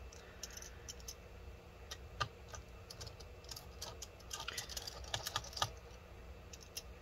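Faint, irregular small clicks and ticks of a precision Torx T5 screwdriver backing screws out of a 16-inch MacBook Pro's internal frame, with a quicker cluster of clicks about four and a half to five and a half seconds in.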